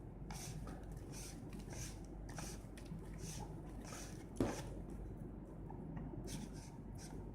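Faint, repeated soft rasping strokes, about two a second, as a night vision goggle lens is turned and tightened by hand, with one sharper click about four and a half seconds in.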